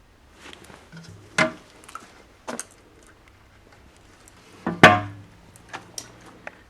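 Handling noise: a string of knocks and clunks with two loud ones, about a second and a half in and just before five seconds in.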